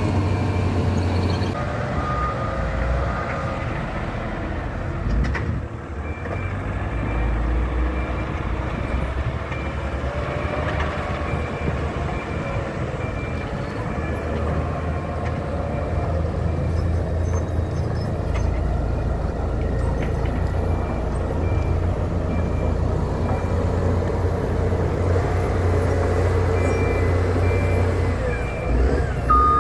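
Heavy diesel earthmoving machinery running steadily on a road-building site, with a reversing alarm beeping in two spells, the second starting near the end.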